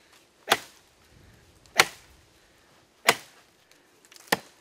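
Axe chopping into oak branches: four sharp strikes a little over a second apart, the last one lighter.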